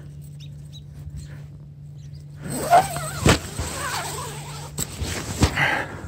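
Tent door zipper being pulled along its track, starting about two and a half seconds in, with two sharp knocks as the tent is handled.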